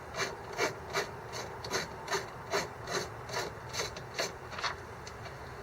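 Hand ratchet worked back and forth to back out a trim screw, giving a short rasping ratchet stroke about two and a half times a second; the strokes stop near the end.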